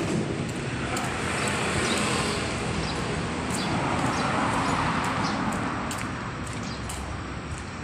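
Road traffic noise: a passing vehicle's even noise swells about halfway through and fades toward the end, with a few small clicks.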